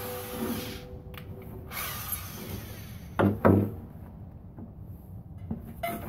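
Handheld corded drill winding down after drilling through a metal ammo can, its hum fading over the first two seconds. About three seconds in, two sharp knocks on metal half a second apart, then a few light handling clicks.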